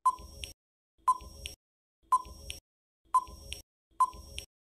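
Countdown timer sound effect: five short beeps, one a second, each a sharp tone that quickly dies away.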